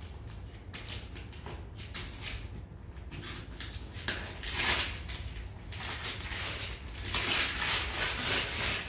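Gift wrapping paper being torn and crumpled off a box by hand, in short rips with a longer, louder stretch of tearing near the end.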